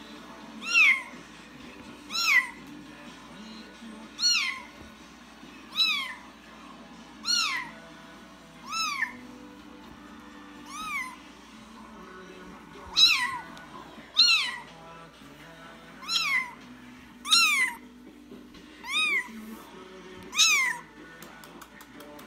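A Bengal kitten meowing over and over: about thirteen short, high-pitched meows, roughly one every second and a half, each rising and then falling away in pitch.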